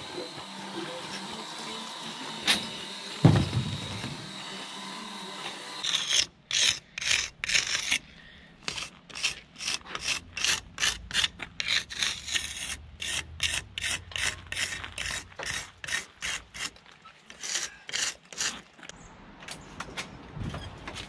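A hand tool is scraped back and forth along a fresh mortar joint in a concrete-block wall, in short regular strokes of about two a second. Before the scraping begins there is a sharp knock, then a louder one.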